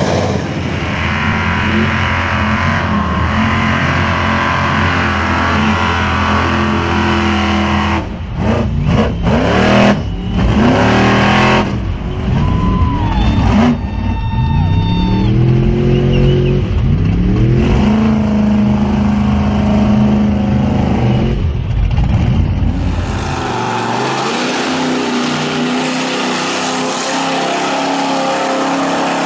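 Mega trucks' engines revving hard on big mud tires, the pitch rising and falling again and again over several runs cut one after another. In the last few seconds the deep engine note thins out under a steady rushing hiss as a truck plows through the mud pit, throwing spray.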